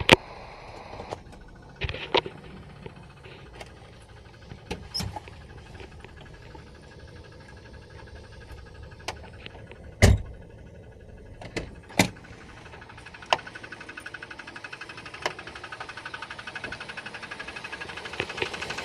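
Several sharp irregular knocks and clacks, then a fast, even ticking from a Jeep Cherokee's 4.0 straight-six (AMC 242) that builds up and gets louder near the end. The owner traced this ticking, which he first took for lifters, a piston skirt or a sticking valve, to a circular crack in the drive (flex) plate.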